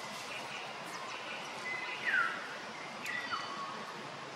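Outdoor forest ambience with a steady background hiss and a few short, high-pitched animal calls. The loudest is a quick downward chirp about two seconds in, and two more brief calls come just after three seconds.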